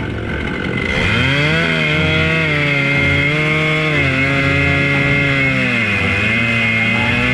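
Husqvarna two-stroke chainsaw on an Alaskan chainsaw mill revving up about a second in and running at high speed through a large log. Its pitch sags briefly near the end as the saw takes the load, then holds steady.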